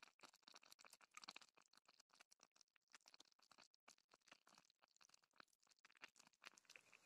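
Near silence with faint, irregular crackling and ticking from a metal bowl of stew simmering over campfire embers.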